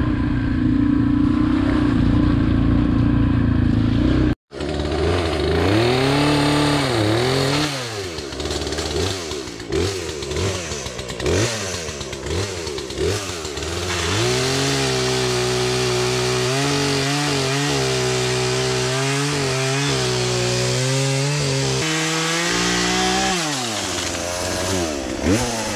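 A dirt bike's engine runs steadily while riding for the first four seconds. After a cut, a chainsaw revs up and down in sweeps and runs in short, choppy bursts, then holds a steady high-speed whine for about eight seconds as it cuts through a fallen tree trunk. It then drops back, with one short rev near the end.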